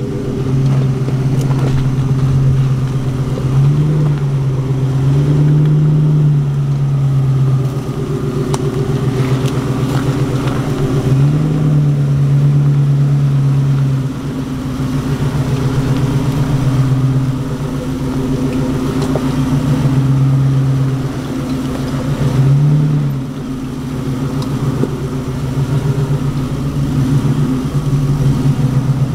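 A 4x4's engine running at low revs under load, picking up briefly about four times before settling back.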